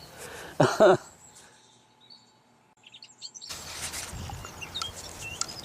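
Songbirds chirping over open-field ambience, with a short vocal sound just before a second in. About a second and a half in, the sound drops almost to silence for two seconds. It comes back as a steady outdoor hiss with the birds still chirping.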